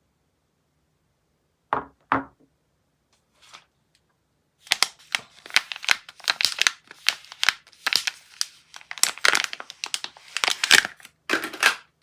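Soap packaging being unwrapped: a couple of short rustles, then from about five seconds in a long run of crinkling, crackling and tearing of the wrapper.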